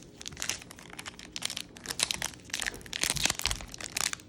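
Foil wrapper of a Pokémon booster pack crinkling and crackling in irregular bursts as it is handled and torn at to get it open.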